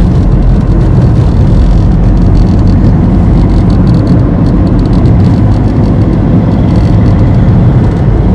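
Steady low rumble of engine and road noise heard inside a Maruti Suzuki Swift's cabin as it drives along, running on a newly replaced clutch plate and pressure plate.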